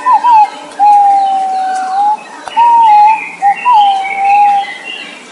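Green pigeon singing: a run of loud, wavering whistled notes broken by two long, slightly falling held whistles. Fainter chirps of other birds sound higher behind it.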